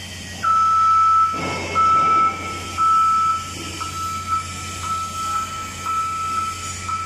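Electronic warning beeper sounding a repeated high beep about once a second, the first three beeps long and loud, the rest shorter and softer, over a steady low machinery hum. A brief rattle comes about a second and a half in.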